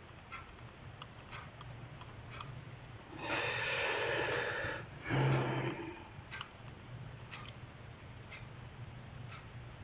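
Small metal parts of a multitool clicking and tapping as they are handled. In the middle comes a long, heavy exhale, then a shorter sigh with a bit of voice in it, as of frustration.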